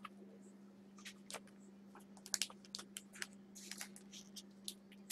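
Faint, irregular light clicks and rustles of trading cards and plastic sleeves being handled and sorted, over a steady low electrical hum.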